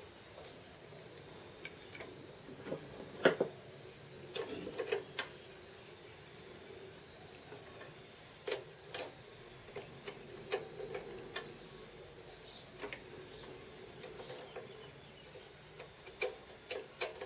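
Hand tools clinking and tapping against a steel boring bar during hand work at the bench: scattered sharp metallic clicks at irregular intervals, with a small cluster near the end.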